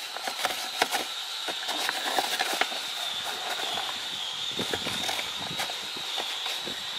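Cloth rag rubbing and scrubbing inside a plastic truck cup holder, with irregular rustles and small clicks as it is wiped clean of sticky residue.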